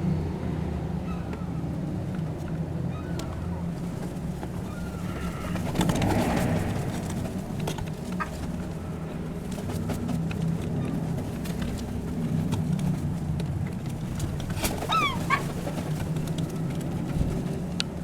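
Seagulls calling, with a few short sliding calls about fifteen seconds in, over a steady low drone.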